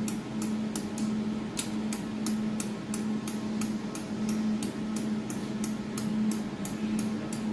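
Jewelry laser welding machine humming steadily, with regular clicks about three a second as a control knob is turned to move the laser support along the x-axis.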